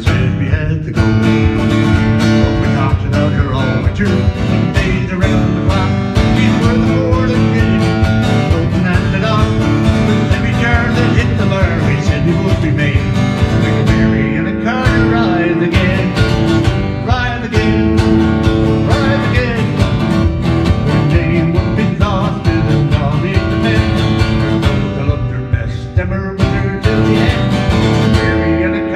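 Steel-string acoustic guitar strummed in a steady rhythm, playing a country-style folk song.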